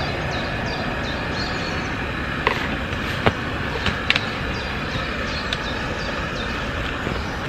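A steady rushing roar, with a few sharp clicks and knocks as camp cookware is handled around a gas stove and collapsible kettle, and small birds chirping high above it in short falling notes.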